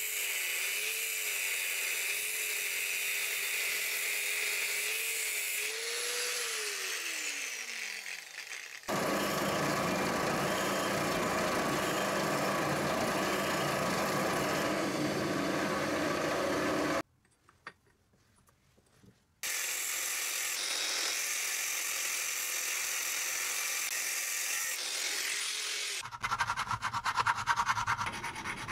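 Small electric power tool motor working metal, heard in several cuts. It runs at a steady whine, then winds down falling in pitch. A louder, rougher grinding noise follows, then a brief quiet gap and more steady tool noise. Rapid scraping strokes come near the end.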